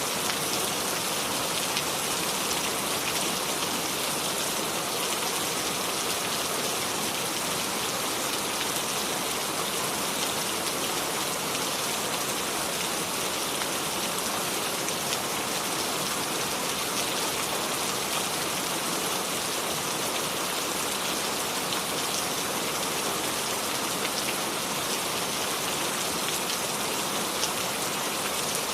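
Steady rain falling and pattering on surfaces, an even hiss of many small drops with no thunder.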